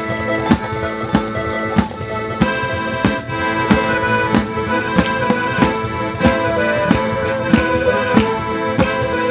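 Live folk band playing an instrumental passage of Salento dance music: accordion tones held over a steady drum beat.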